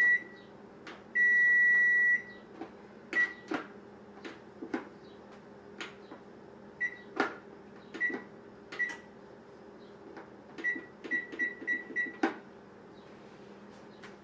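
Oven's electronic timer beeping as its keypad is pressed to set five more minutes of baking. A long beep of about a second comes near the start, then single short beeps a second or so apart, then a quick run of five beeps near the end. Scattered clicks and knocks fall between the beeps, with a sharp knock just after the last beep.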